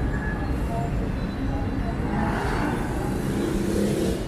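Busy street traffic: motorcycle-tricycle and car engines running in a steady low rumble, with a hiss rising in the second half.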